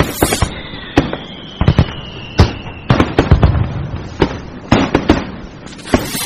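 Fireworks and firecrackers going off: irregular sharp bangs, a crackling burst at the start and another near the end, and a long whistle falling slightly in pitch over the first three seconds.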